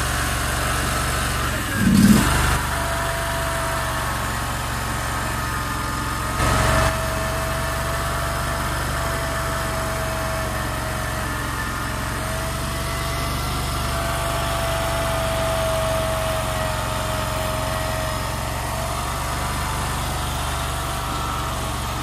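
Mini skid steer engine running steadily while the lift circuit is held against its hydraulic relief valve, with a wavering high whine from the hydraulics through most of it. Two brief louder surges come about 2 and 6.5 seconds in. This is the sound of the relief pressure being set, here to about 2800 psi.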